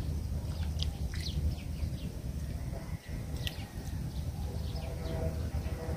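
Birds calling in short, high chirps several times, over a steady low rumble.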